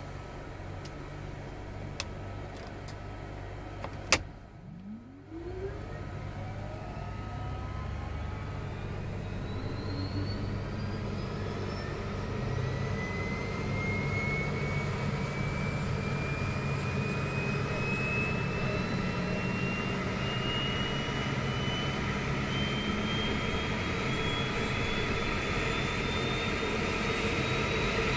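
Embraer Phenom 100's Pratt & Whitney PW617F turbofan starting, heard from the cockpit: a sharp click about four seconds in, then a whine that starts low and climbs steadily in pitch while growing louder as the engine spools up through light-off.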